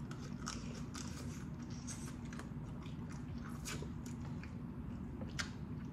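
Close-up eating of boiled crawfish: chewing and mouth noises with scattered small wet clicks and smacks, one sharper click near the end.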